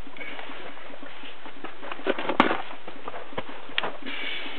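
Scuffs and knocks of someone moving about in a crawl space with a handheld camera, over a steady hiss; the sharpest knock comes about halfway through.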